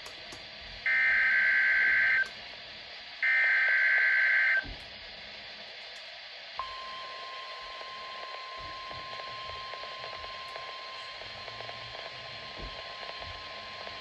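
NOAA Weather Radio Required Weekly Test alert played through a Midland weather radio's speaker. First come two loud SAME digital header bursts, each about a second and a half long with a short gap between them. About six and a half seconds in, the steady 1050 Hz warning alarm tone starts and holds.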